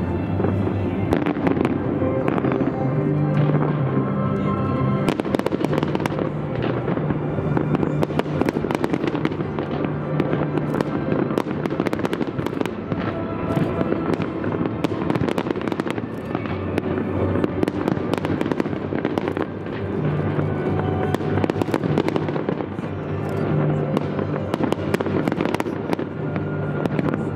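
Aerial fireworks bursting in rapid, overlapping bangs and crackles, over music with long held low notes.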